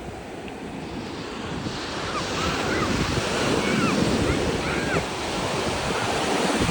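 Ocean surf breaking on a beach, the wash swelling louder through the middle, with wind buffeting the microphone and faint short high calls over it.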